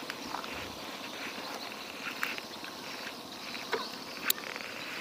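Insects chirping steadily, with scattered faint ticks and one sharp click a little after four seconds in.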